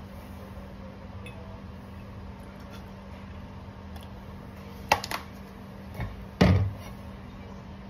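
Kitchen containers being handled at a counter beside a stainless steel tumbler: a pair of sharp clinks about five seconds in, then a dull thud and a louder knock a second later, over a steady low hum.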